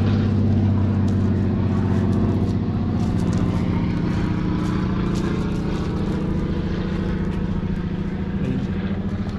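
Propeller airplane flying overhead, its engine a steady drone.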